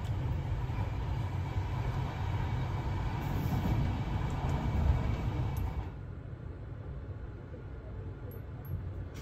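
Sleeper train running on the rails, a steady low rumble that drops suddenly to a quieter, duller rumble about six seconds in.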